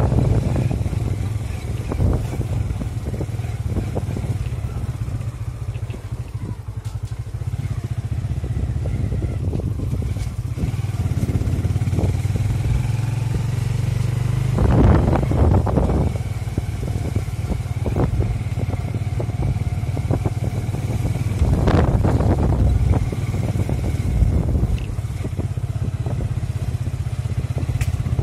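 Motorcycle engine running steadily while riding along a bumpy dirt forest track, with two brief louder bursts of noise partway through.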